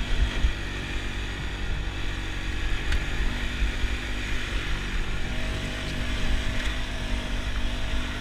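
ATV engine running steadily with a low rumble.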